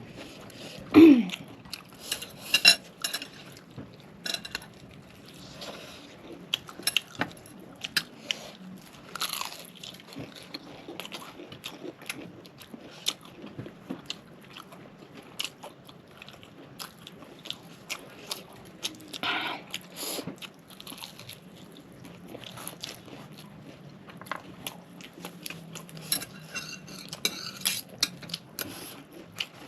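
Fried chicken being bitten and chewed close to the microphone: irregular crisp crunches with softer chewing between them.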